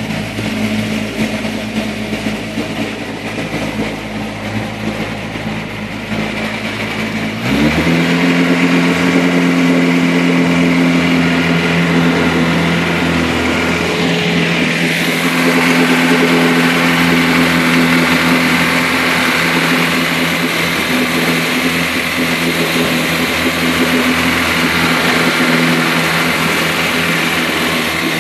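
Motorboat engine running at low revs. About a quarter of the way in the throttle opens and the pitch climbs quickly, and then the engine holds steady at higher revs as the boat speeds along. From about halfway there is a growing rush of water churning past the hull.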